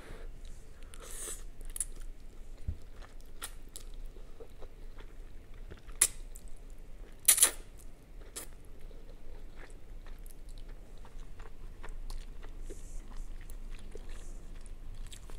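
A person eating spicy instant noodles: slurping and chewing, with many small wet mouth clicks. A few louder sharp sounds come about a second in, about six seconds in and about seven and a half seconds in.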